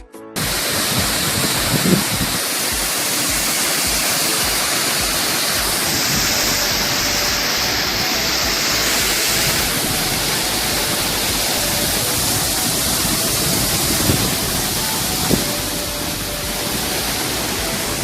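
Water of a waterfall rushing, a loud, steady, even noise.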